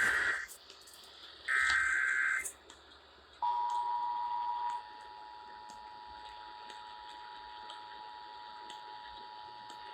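Emergency Alert System test: two one-second bursts of screeching SAME header data, then the EAS two-tone attention signal. The attention signal is a steady dual beep that begins about three and a half seconds in, drops in level a second or so later and keeps sounding.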